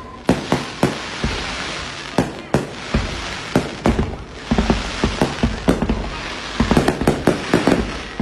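Aerial fireworks display: shells bursting with sharp bangs at irregular intervals, with a steady crackling hiss between them. The bangs come faster in the second half.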